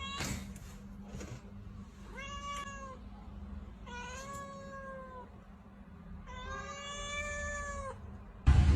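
Domestic cat meowing three times, each meow a long, drawn-out call, the last the longest.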